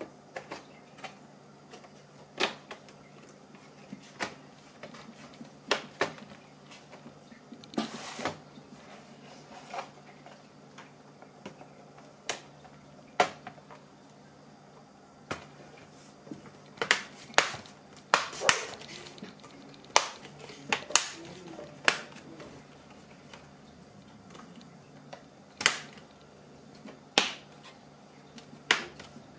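Sharp, irregular clicks and taps of an HP 15-ay007nl notebook's plastic chassis being fitted back together, its clips snapping into place one after another, bunched more closely in the second half.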